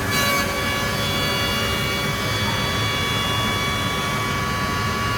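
MKM UNI Portal TB CNC machining centre running: a brief hiss, then a steady high whine of several tones held evenly.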